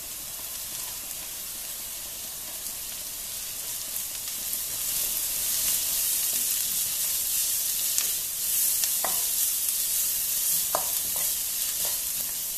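Shredded carrots, onion and garlic sizzling in butter and oil in a non-stick wok as they are stirred with a wooden spatula. The sizzle grows louder about a third of the way through, with a few light knocks of the spatula against the pan.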